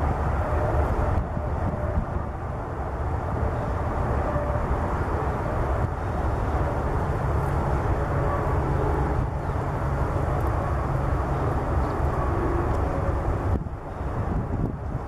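Steady low rumble of distant highway traffic and a jet aircraft, dropping off somewhat near the end.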